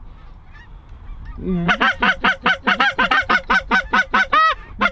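Goose honking: a fast, even run of short, loud honks, about five a second, starting about a second and a half in, with one longer drawn-out honk near the end.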